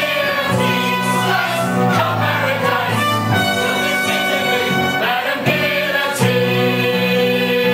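Live stage-musical ensemble number: a pit orchestra plays sustained chords while the chorus sings.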